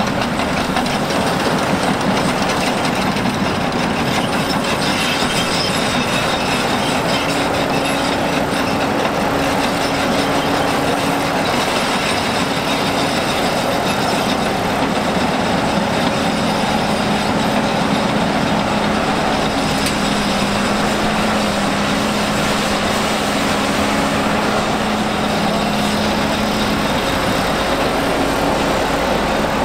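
Heavy diesel earthmoving machinery at work, a large Volvo excavator loading an articulated dump truck. The big diesel engines run under load that changes now and then, over a dense, steady rattling and clanking of metal.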